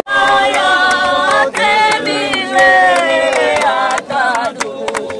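A group of voices singing a Lingala hymn together on long held notes. The singing starts abruptly after a momentary break and gets quieter after about four seconds.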